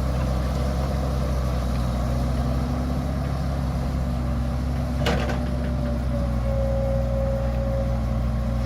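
A machine's motor running steadily, with a single sharp knock about five seconds in.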